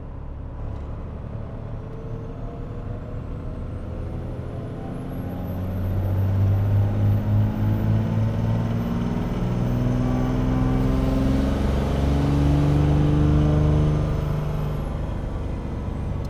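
12-valve Cummins diesel on its stock turbo making a full-throttle pull on a chassis dyno while being fed nitrous and nitromethane. The engine note climbs steadily in pitch and grows louder from about four seconds in, with a thin high turbo whistle rising early on, then eases off near the end.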